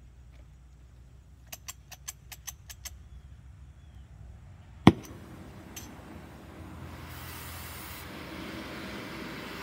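Gas cutting torch being lit: about seven quick clicks, then the torch catches with one sharp, loud pop about five seconds in. A steady hiss of the flame follows and grows louder twice as the gas is turned up to heat the steel red hot.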